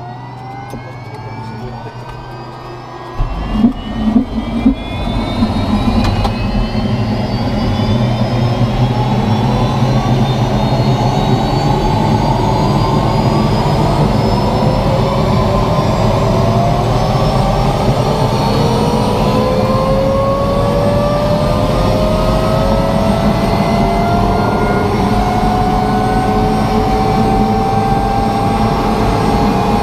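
Turbine helicopter engine starting, heard from inside the cockpit: whine tones climb steadily in pitch, then about three seconds in the sound jumps sharply louder with a few sharp bursts as the engine catches. It settles into loud, steady running while the whine keeps rising as the engine spools up.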